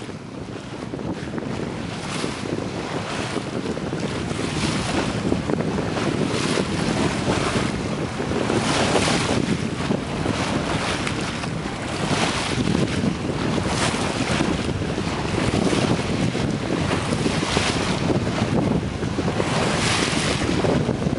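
Wind buffeting the microphone in irregular gusts, over the wash of choppy open water and waves; it grows louder over the first few seconds.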